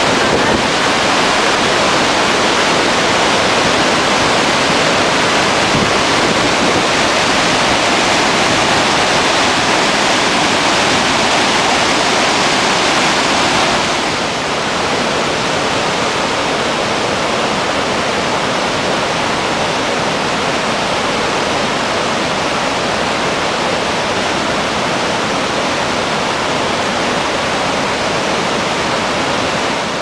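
Steady rush of water from the Iguazú Falls, heard close to the falling water. About halfway through it drops slightly in level and loses some of its brightness.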